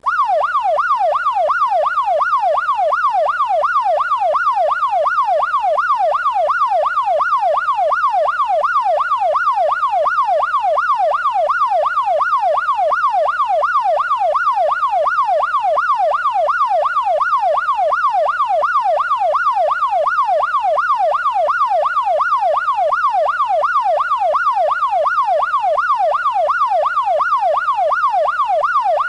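Police siren in its fast yelp setting, the pitch sweeping rapidly up and down about three times a second, steady and unbroken.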